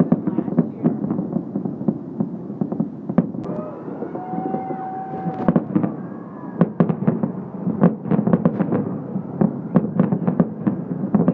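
Fireworks going off in rapid succession: many sharp bangs over a dense, continuous crackle and rumble, with the louder bangs coming thickest from about six seconds on.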